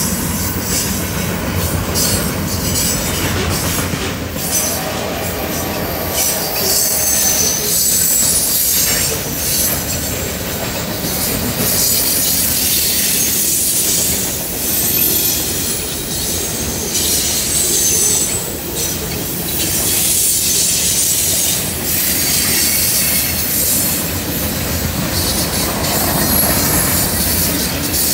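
Norfolk Southern freight train rolling past: the lead diesel locomotives, then a long string of hopper and tank cars, its wheels rumbling and clattering on the rails with high-pitched squeals that come and go.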